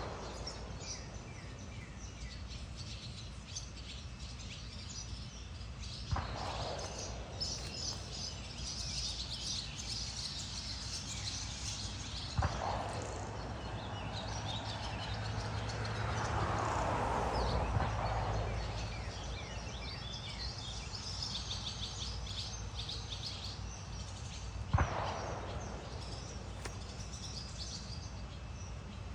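Birds chirping and calling continuously, with a few sharp knocks about six, twelve and twenty-five seconds in and a swell of noise lasting a few seconds in the middle.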